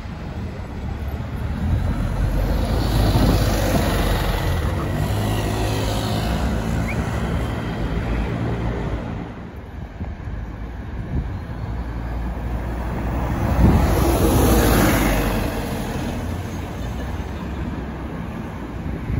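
Double-decker bus engine running as the bus drives past, over steady city road traffic. A second vehicle passes close in the latter part, swelling up and fading as the loudest moment.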